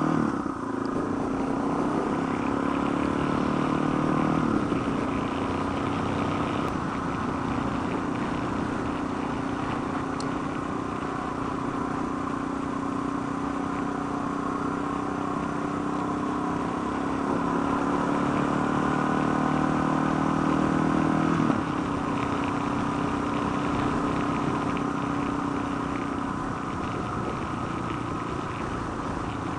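Suzuki DR650's single-cylinder four-stroke engine running under way, heard from the rider's seat along with wind noise. The engine pitch drops sharply twice, about four seconds in and again about twenty-one seconds in.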